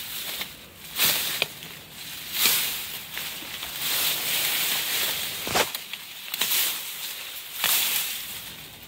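Bamboo leaves rustling and swishing against each other and the microphone as someone pushes through the dense thicket, in irregular swells with a sharp knock about two-thirds of the way through.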